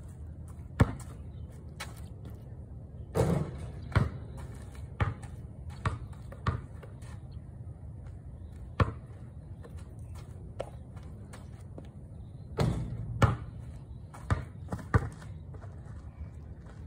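A basketball bouncing on a concrete driveway: a string of irregular, sharp thuds, with a few longer, louder impacts about three seconds in and again near the end.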